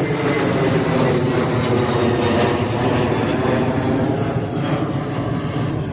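Jet airliner passing low overhead: loud, steady jet engine noise with a droning hum, strongest in the first half.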